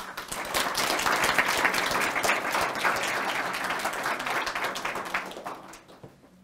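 Audience applauding, many hands clapping at once, starting right away and dying down about five to six seconds in.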